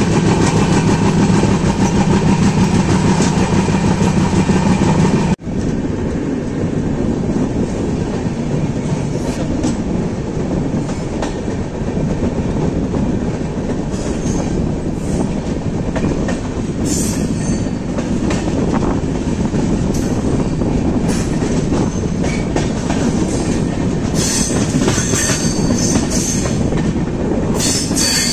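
Passenger train running on the rails: a steady, loud rumble of wheels and carriages. The sound changes abruptly about five seconds in, and brief sharp high sounds come now and then near the end.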